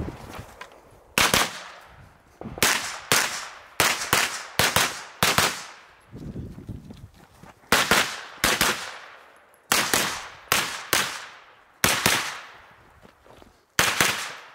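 Shots from a Nordic Components pistol-caliber carbine, fired mostly in quick pairs with short pauses between groups, a dozen or more sharp cracks in all.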